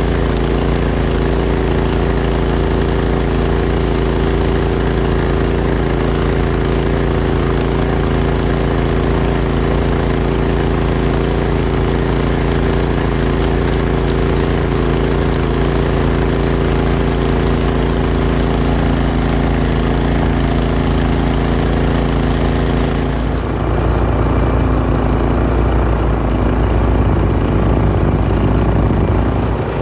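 Small engine of a backyard-railroad locomotive running steadily. About 23 seconds in the sound changes abruptly to a duller, rougher note.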